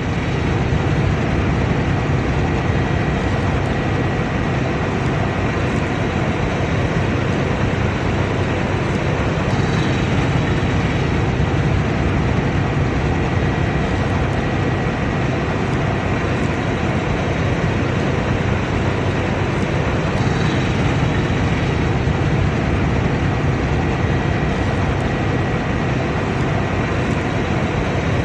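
Combine harvester running steadily at work: a constant loud mechanical drone with a faint, steady high whine over it.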